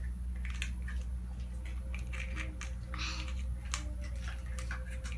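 Light clicks and rustles of small hands handling a plastic surprise egg, with jelly beans clicking against its plastic half, over a steady low hum.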